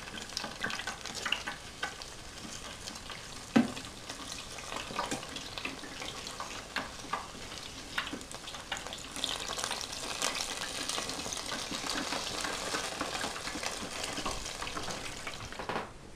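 Yeast-dough doughnuts deep-frying in oil at 170 °C in an electric deep fryer: a steady sizzle full of small crackling pops, growing denser in the second half. One sharp knock sounds about three and a half seconds in, and the sizzle cuts off shortly before the end.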